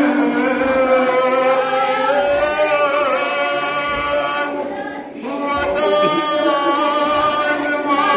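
A male voice sings a noha, a Shia lament, unaccompanied into a microphone. The phrases are long, held and wavering, with a brief break for breath about five seconds in.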